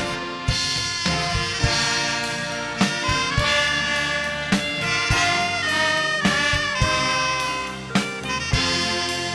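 Live instrumental worship music from a symphony band, with brass carrying the melody over a drum kit's regular beat.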